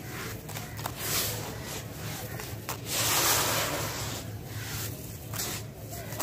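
Handfuls of coarse, gritty crumbled dirt scooped and poured back into a plastic tub, the grains rustling and hissing as they spill. The longest and loudest pour comes about three seconds in.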